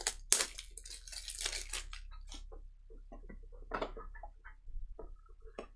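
Trading cards and their wrapper being handled: a run of irregular crinkling, rustling and small clicks, louder in spurts.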